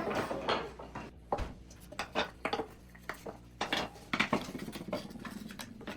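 Hand-carved wooden spoons and bowls knocking and clattering as they are handled: a string of irregular clicks and knocks.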